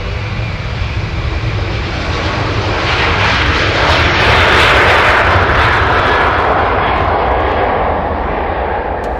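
Jet engines of a Boeing 747-400F freighter as it rolls past on the runway. The noise swells from about three seconds in to a peak near the middle, then eases off.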